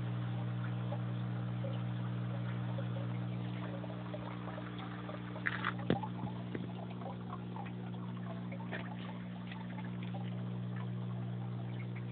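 Steady electric hum of an aquarium pump with faint water trickling. A few short knocks come about six seconds in.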